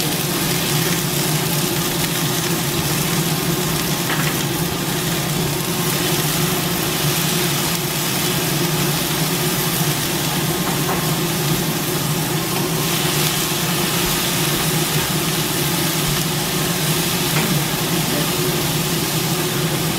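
Scallops and scallion pieces sizzling steadily in hot oil in a wok, over a steady low hum.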